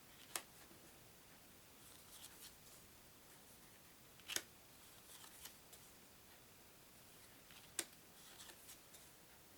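Playing cards being handled at a table: three sharp card snaps, about three and a half seconds apart, with faint rustling and ticking of cards between them.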